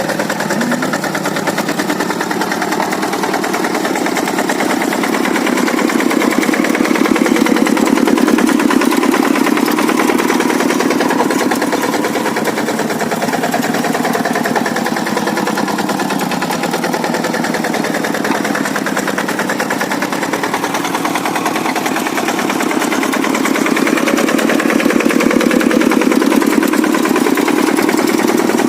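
Kubota single-cylinder diesel engine of a Quick G100 hand tractor running steadily under load, with a fast even firing beat that swells louder twice.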